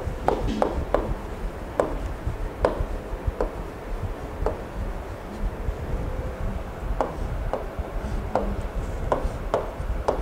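Pen tip tapping and sliding on the glass of an interactive touchscreen display as words and arrows are written: irregularly spaced short clicks, about a dozen, over a low steady rumble.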